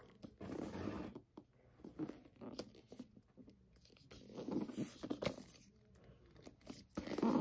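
Faint rustling and scraping of a hardcover book being handled, held up and turned over in the hands, in a few short bursts with quiet gaps between.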